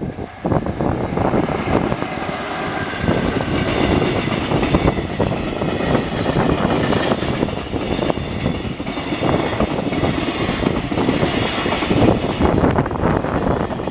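Train passing close by at a level crossing, its wheels clacking rapidly over the rails.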